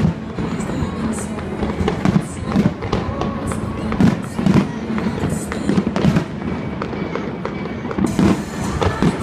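Aerial fireworks going off in quick succession, a steady run of bangs about one or two a second, with music playing underneath.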